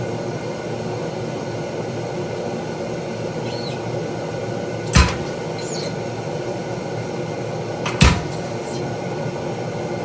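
Two single treadle-hammer blows on a spring fuller, striking small steel stock about three seconds apart, over a steady background hum.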